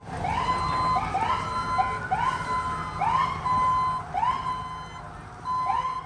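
Emergency vehicle siren sounding a series of short rising whoops at uneven intervals, each sweeping up and settling briefly on a held tone. A fainter, slower siren wail rises and falls behind them for the first few seconds.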